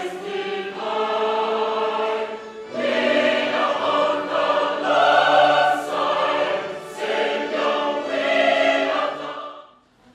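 Choir singing a hymn in parts, in a few long held phrases, breaking off together shortly before the end.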